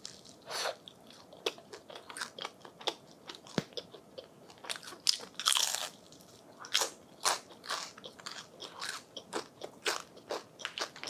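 Close-miked crunching bites and chewing of crispy grilled rice paper (bánh tráng nướng): irregular sharp crunches, with a few louder ones midway.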